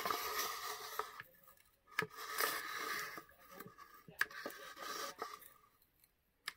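A hand-held miter shear's blade biting and scraping into a thin wooden miniature bedpost, scoring around it: three bouts of crunching, each starting with a sharp click, with short pauses between.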